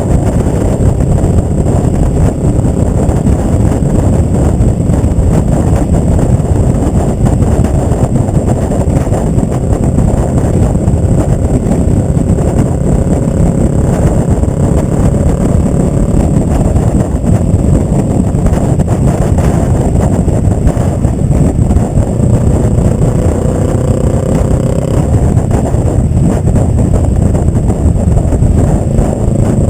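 Kawasaki ER-5's parallel-twin engine running loud and steady under way through a Delkevic Mini 8-inch (200 mm) slip-on exhaust, heard from the fuel tank.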